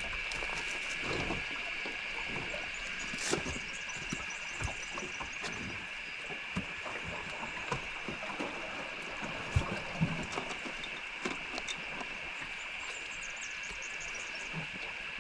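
Outdoor ambience on the water: a steady high-pitched drone throughout, with scattered light knocks and clicks.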